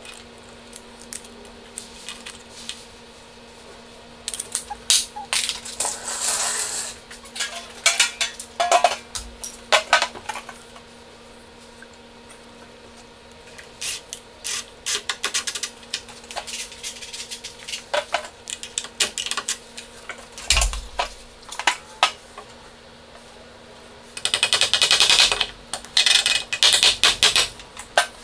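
Hand tools working on a wooden beam: bursts of light clicking and scraping as a tape measure is handled and a screw is turned in by hand with a screwdriver. A single dull thud comes about two-thirds of the way through, and a faint steady hum runs underneath.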